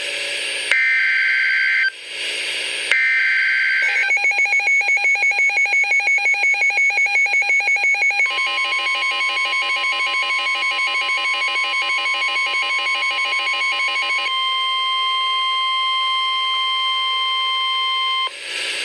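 NOAA Weather Radio Emergency Alert System activation. Two short bursts of the screeching digital SAME header tones that encode the warning come first, with static hiss between them. Next comes a rapidly pulsing alarm tone of about eight pulses a second for about four seconds, then the steady 1050 Hz warning-alarm tone for about ten seconds, giving way to static hiss near the end.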